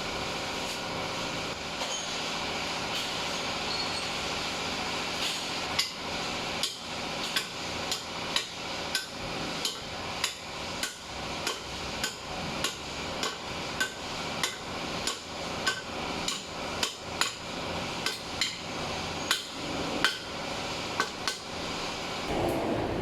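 Hammer strikes, sharp and regular at about two a second, starting about six seconds in, over a steady background hum.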